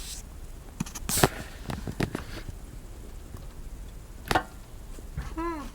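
Plastic knocks and clicks of a Play-Doh toy ice-cream press being pushed down and handled: a few light clicks and two louder knocks, about a second in and a little after four seconds.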